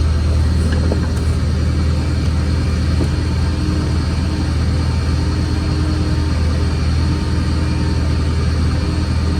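A vehicle's engine running with a steady low rumble, plus a faint on-and-off higher tone.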